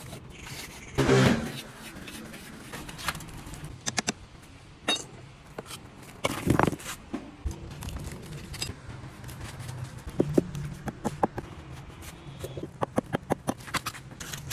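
Scattered scrapes and knocks from cement work on a cast concrete bench: a wooden float scraping over wet cement, then knocks and taps on the hardened concrete, with a quick run of sharp taps near the end.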